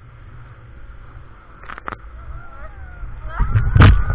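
Wind and water rushing past the microphone on a banana boat towed at speed, with faint wavering shrieks from the riders. About three and a half seconds in the rushing noise surges much louder, and a sharp hit comes just before the end.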